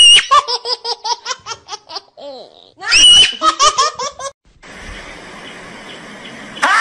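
High-pitched human laughter, twice: a shrill held squeal breaks into a quick run of 'ha-ha' laughs, about six a second. The laughter stops about two-thirds of the way through and gives way to a steady hiss.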